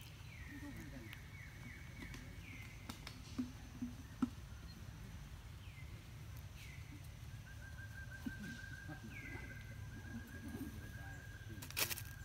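Birds calling outdoors: short whistled calls that drop in pitch repeat every second or two, and a fast, even trill is held for about three seconds in the second half. A few faint knocks are heard, and there is a sharp clatter near the end.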